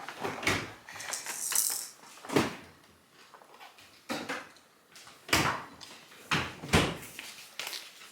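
Six or so separate knocks and clatters, a second or more apart, with quieter handling noise between them.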